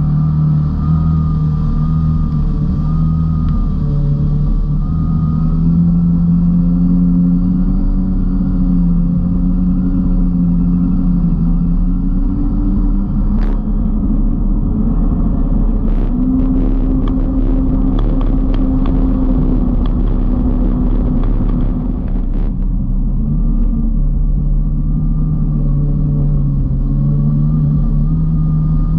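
Kawasaki Ultra 310 LX jet ski's supercharged four-cylinder engine running hard at speed, its pitch wavering up and down with the throttle over a steady rush of water and spray. For several seconds past the middle the engine runs higher, with a rapid patter of sharp taps.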